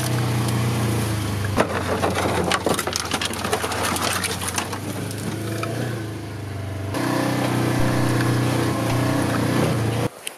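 A vehicle engine running at a steady pitch, with clattering and rattling over it. The sound changes abruptly about seven seconds in and cuts off just before the end.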